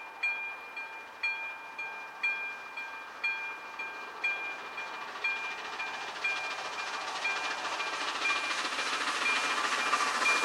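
Level-crossing warning bell dinging steadily, about once a second, as a steam locomotive hauling a train approaches; the train's noise rises from about halfway through and by the end is louder than the bell.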